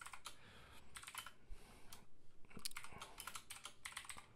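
Faint computer keyboard typing: short runs of key clicks with a pause of about a second in the middle.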